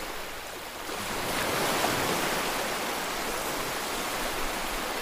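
A steady rushing noise, like surf or running water, swelling a little about a second in.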